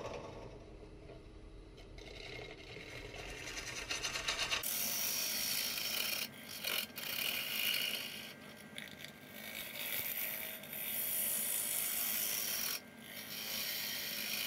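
Bowl gouge cutting the inside of a spinning maple bowl on a Powermatic wood lathe: a steady high hissing scrape of shavings coming off. It is fainter for the first few seconds, then louder from about five seconds in, with a few brief breaks between cuts.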